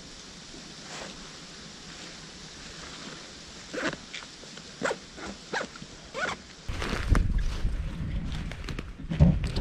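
About five short, sharp animal calls, barks spaced roughly half a second apart, starting about four seconds in. From about seven seconds in they are followed by a low rumbling noise on the microphone and a few heavy thumps near the end.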